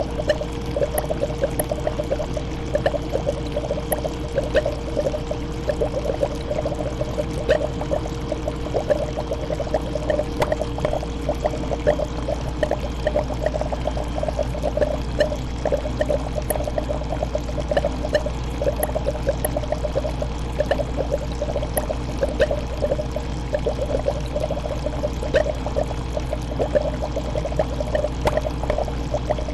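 Fish tank water bubbling and trickling steadily, with dense small pops, over a low steady hum and a faint constant tone.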